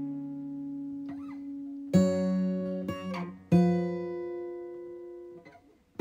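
Background music on acoustic guitar: chords plucked and left to ring, with two fresh strums about two and three and a half seconds in, fading almost to nothing near the end.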